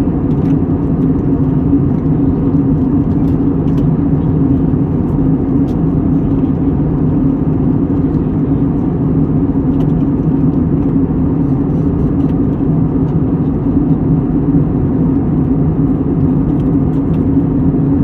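Steady low rumbling drone with an even hum in it, neither rising nor falling, and a few faint ticks over the top.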